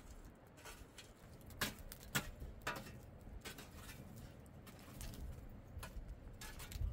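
Irregular light taps and clicks over a low rumble, with the sharpest pair about two seconds in.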